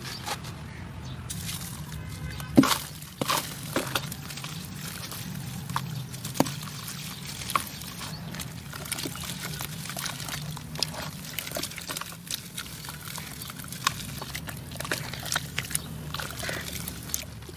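Hands squeezing and crumbling soft wet clay in a basin of muddy water: squelching and sloshing with many sharp crackles and splats, one loud splat about two and a half seconds in.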